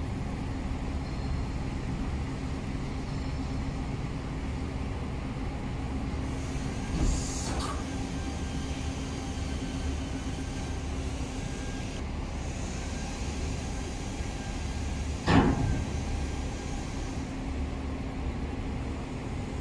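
Refuse compactor truck's diesel engine running steadily with a constant hum while the hydraulics raise the rear compactor tailgate. A brief hiss with a light knock about seven seconds in, and a sharp knock about fifteen seconds in.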